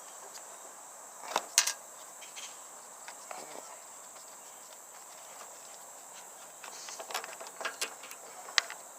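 Small metal clicks and knocks of a wrench and battery terminal hardware as the cables are taken off a riding mower's battery, a couple about a second and a half in and a cluster near the end. A steady high-pitched whine sits underneath throughout.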